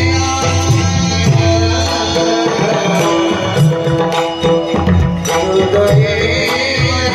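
Varkari bhajan music: a pakhawaj barrel drum beating under held drone notes, with small hand cymbals striking and a man's voice singing with gliding notes in the second half.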